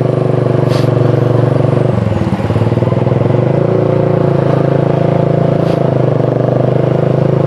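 Motorcycle engine running while riding, steady, with a brief drop and wobble in pitch about two seconds in before it settles back to an even note.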